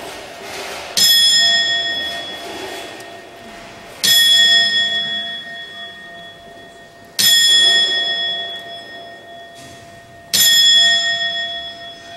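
Bell of the Strasbourg cathedral astronomical clock struck four times, about three seconds apart, each stroke ringing and fading away: the Death automaton striking the hour.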